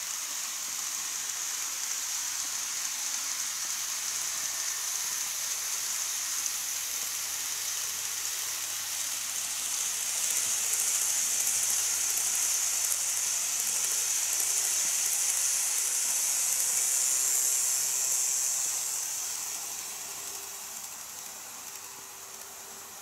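KATO model train running on plastic viaduct track out of view, a steady high hiss of wheels and motor that swells about halfway through and fades away toward the end as it passes.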